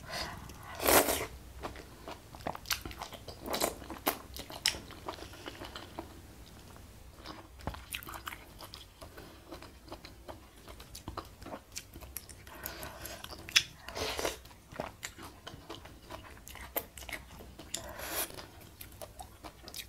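Close-miked eating of noodle soup: wet chewing and slurps of noodles and broth, with many short sharp clicks and a few louder slurps about a second in and near the end.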